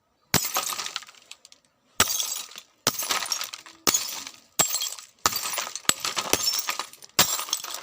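Glass shattering again and again: about eight separate smashes, each a sharp crash followed by a high tinkle of falling shards that dies away before the next one.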